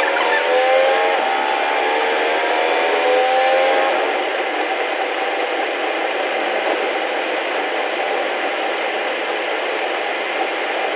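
Sped-up running sound of a KiHa 201 series diesel railcar, heard from inside the car. For about the first four seconds its engine tones climb in pitch and drop back several times. After that there is a steady rushing run noise.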